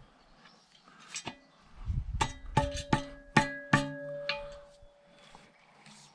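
Metal clanking: the steel shovel attachment fitted on an axe head knocked a handful of times, about five sharp ringing knocks over a second and a half, a couple of seconds in, with the metal ringing on briefly after them.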